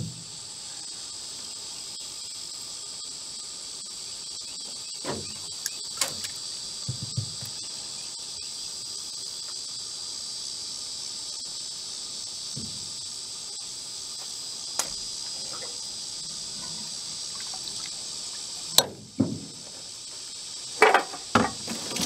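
Steady, high-pitched chorus of insects droning in the background. A few short knocks and bumps come from handling a fish in a landing net against the side of the boat, the loudest near the end.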